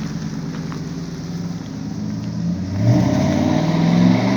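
Exhaust note of a 2002 Chevy Tahoe's 5.3-litre V8 through a dual 3-inch Flowmaster 40 series catback. It runs steadily, then about three seconds in it revs up hard, the pitch climbing steeply and the note getting louder.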